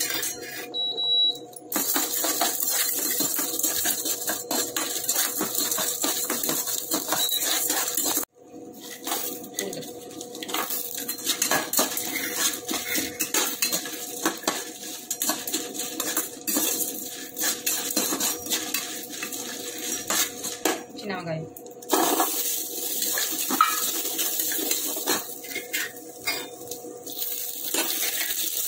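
A metal slotted spoon stirring and scraping in a nonstick kadai, with dry lentils and chillies rattling as they roast: a continuous run of clinks and scrapes over a steady hum. The sound breaks off sharply about eight seconds in and again near two-thirds through.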